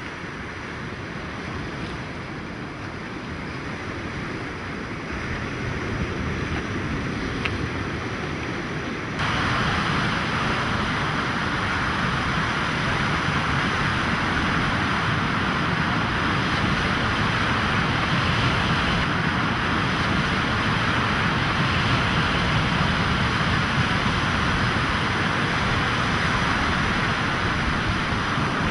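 Steady wash of ocean surf with wind, growing gradually louder and then stepping up abruptly about nine seconds in.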